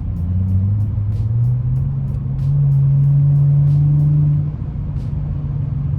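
Mercedes-Benz C300's 3.0-litre V6 accelerating, its note rising over the first couple of seconds, held at its loudest, then easing off about four and a half seconds in. The throttle is sharpened by a Pedal Commander controller in Sport Plus mode.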